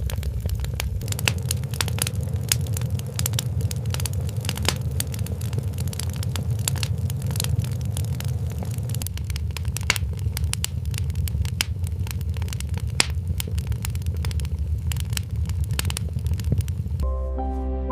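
Wood fire crackling with dense, irregular pops over a low rumble. Gentle music comes in near the end.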